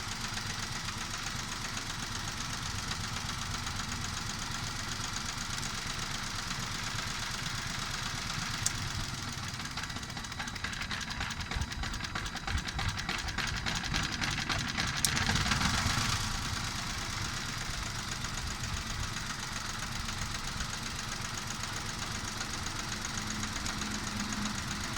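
Nissan Micra engine running with a misfire. It grows louder for a few seconds in the middle, and there are two short clicks.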